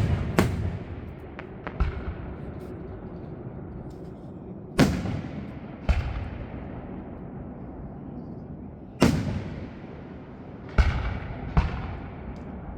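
Aerial fireworks shells bursting: about seven sharp, loud booms at uneven gaps of one to four seconds, each trailing off in an echoing rumble.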